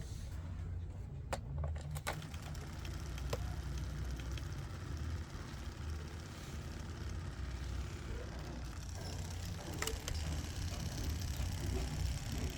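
Washing machine drain pump running on its own on a test power cord, a steady low hum with a few sharp clicks.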